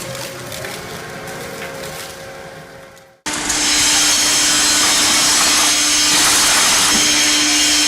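A sound fades out and stops about three seconds in. Then a heavy scrap-processing machine starts up loudly: a steady grinding noise with a constant hum under it.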